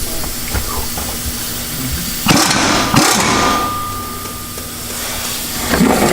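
Cordless power wrench running in reverse, spinning a downpipe bolt loose: a steady motor hum, then a louder noisy stretch just past two seconds in.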